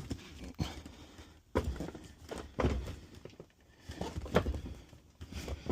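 A large packed cardboard box being handled and shifted for weighing. It gives several dull thumps and knocks, about a second apart, mixed with footsteps.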